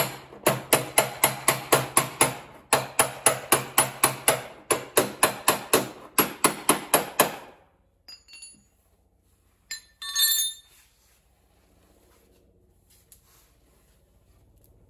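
Rapid hammer blows, about five a second in three runs separated by brief pauses, tapping the rolled-in steel lip of a Mazda RX-7 FC's rear fender back out to its original shape. Then a single short metallic clink about ten seconds in.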